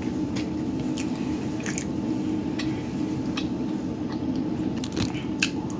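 A person chewing food with the mouth closed, with small wet clicks scattered through, over a steady low hum.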